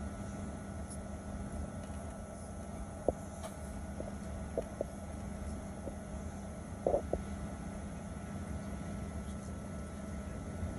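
Cabin noise of a Boeing 737-900 taxiing, its CFM56-7B engines at low power: a steady low rumble with a level hum, broken by a few short knocks and rattles, the loudest about three seconds in and a pair about seven seconds in.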